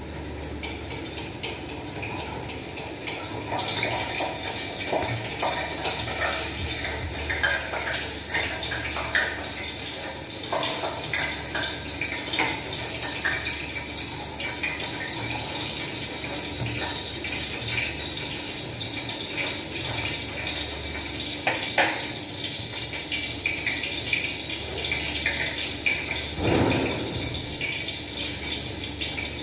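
Knife and hands working raw fish in a kitchen, with scattered small clicks and knocks, over a steady rushing like a running tap; a louder, one-second rustle comes near the end.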